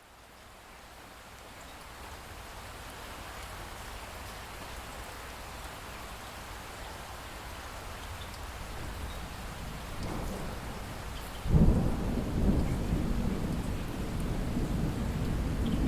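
Steady rain that fades in and grows louder, then a sudden loud crack of thunder about three-quarters of the way through, followed by low rolling rumbles over the rain.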